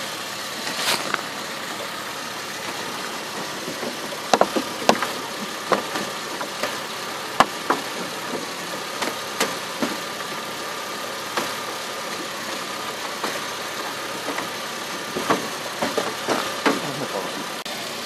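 Scattered sharp clicks and knocks of a plastic headlight assembly being worked loose by hand from a 2005–2008 Chevrolet Uplander's front end, over a steady hum.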